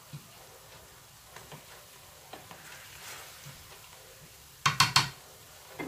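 Wooden spoon stirring diced pork in a stainless steel skillet: a faint sizzle with light scraping ticks. Near the end, three quick, loud knocks of utensil against the pan, and one more at the very end.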